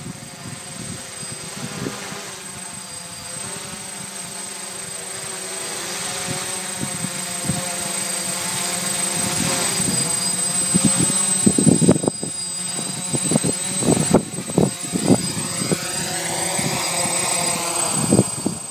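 DJI Flame Wheel F450 quadcopter's brushless motors and propellers humming steadily as it descends under failsafe return-to-home, growing louder as it comes down overhead. From about eleven seconds in, uneven gusts of air noise join the propeller hum as it settles to land.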